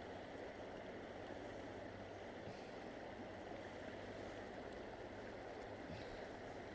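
Steady rush of a river running over rocks.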